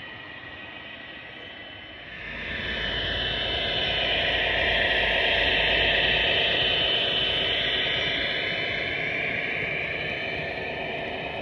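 HO-scale MTH SD70ACE model diesel locomotive running past close by with a steady whirring run. The sound swells about two seconds in, is loudest midway as the locomotive passes, and fades toward the end.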